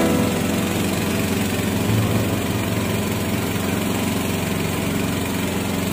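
Motorboat engine running steadily, towing a river raft, over a constant hiss.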